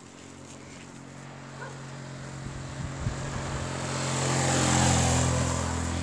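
Motor vehicle engine running on the road, getting louder as it approaches and passes, loudest about four to five seconds in.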